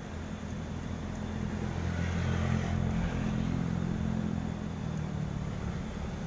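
A motor vehicle's engine running with a low hum that swells to its loudest about two to three seconds in, then eases off.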